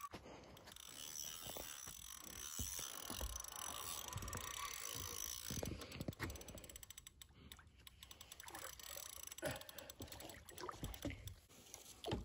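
Fishing reel being wound and rod handled while a hooked carp is played, with a clicking, mechanical texture; water sloshes and splashes toward the end as the fish nears the surface.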